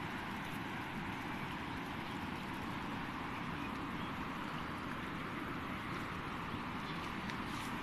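Floodwater rushing past in a broad, muddy torrent: a steady, even wash of water noise.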